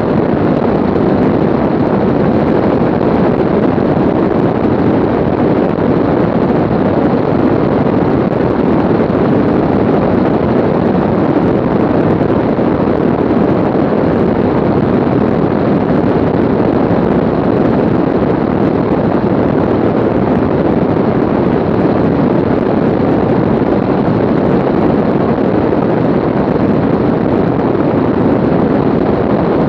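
Aircraft in flight: a steady, unbroken noise of engines and rushing air, with wind on the microphone.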